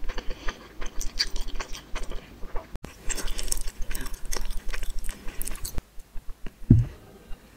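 Close-miked chewing of spicy instant noodles and enoki mushrooms: a dense run of quick wet clicks and smacks. Near the end comes a single low thump, the loudest sound, and then the chewing quietens.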